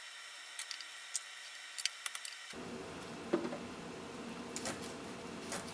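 Faint, irregular small clicks and ticks of small rubber plugs being pried out of a plastic e-bike battery cover by hand.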